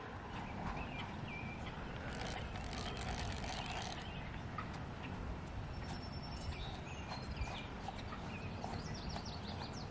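Spinning fishing reel being handled and worked, giving scattered light clicks: the reel is jammed and won't reel in line. Birds chirp now and then over a steady outdoor hiss.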